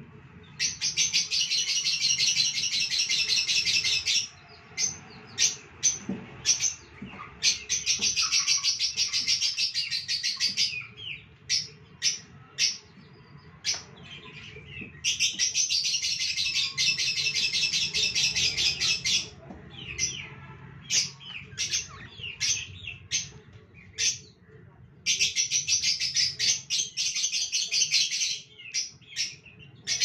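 Budgerigars chirping: four stretches of fast, high-pitched chatter lasting a few seconds each, with separate sharp chirps in between.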